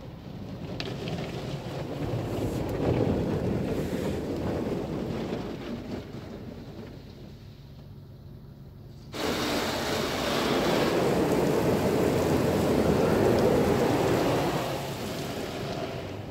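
High-pressure water spray from an OPW PDQ Tandem Surfline touchless car wash hitting the car's body and glass, heard from inside the cabin. One pass swells and fades over the first several seconds. A louder spray starts suddenly about nine seconds in, runs for about six seconds, then tapers off.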